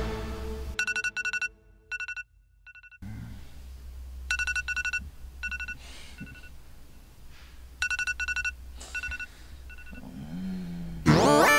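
Electronic alarm beeping: quick clusters of short, high beeps repeating every few seconds, the signal to wake up. Near the end a loud drawn-out sound with a falling pitch cuts in.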